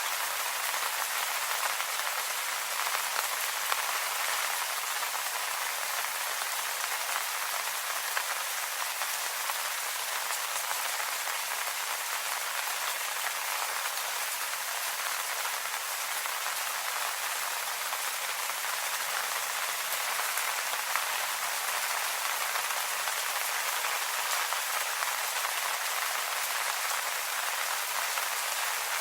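Steady rain falling on leaves, a dense even patter of many small drops.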